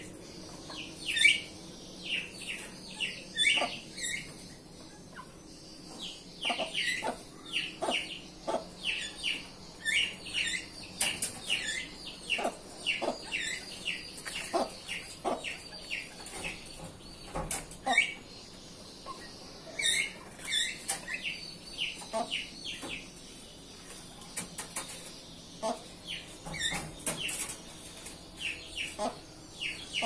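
Birds in an aviary calling busily: a steady stream of short, sharp chirps that sweep downward, often several a second, with a brief lull twice.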